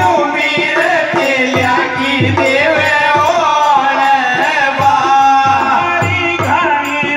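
Indian folk song played loud through loudspeakers for dancing: a singer's voice over a steady drum beat and rattling percussion.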